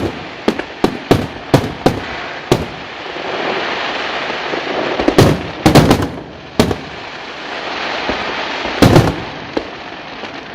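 Aerial fireworks shells bursting overhead in a rapid run of sharp bangs. Stretches of dense crackling come in between, about three to five seconds in and again around eight seconds, and the loudest bang falls near nine seconds.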